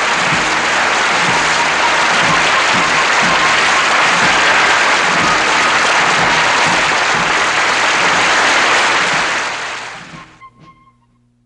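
Audience applauding steadily, then fading out about ten seconds in.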